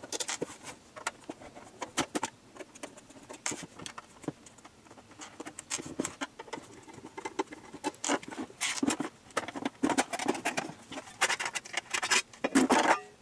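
Clicks, taps and light knocks of a screwdriver and screws against an internet set-top box's casing as it is taken apart. Near the end there is a louder run of scraping and rattling as the lid is lifted off the chassis.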